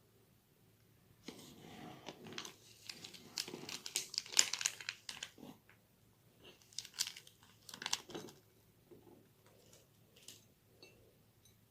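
Plastic packaging crinkling and rustling as it is handled: irregular crackles in two bouts, the second shorter, then a few faint ticks.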